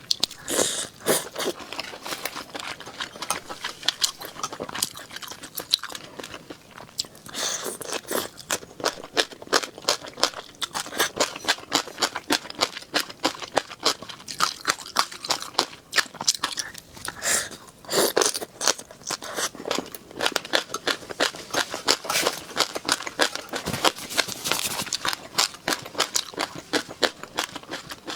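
A person chewing and crunching food close to the microphone: a dense, irregular run of crisp crunches, with a few louder clusters of bites spread through it.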